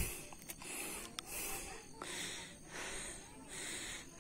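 A person's breathing close to the microphone, a hiss coming and going in a steady rhythm of roughly one breath every three-quarters of a second. A few faint clicks sound in the first second or so.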